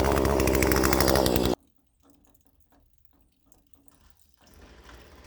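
Poulan P3314 two-stroke chainsaw running loud and steady, cutting off suddenly about a second and a half in. After it, near silence with a few faint ticks, then a low noise building up near the end.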